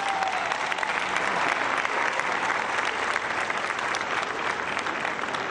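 Large crowd applauding steadily, easing slightly near the end.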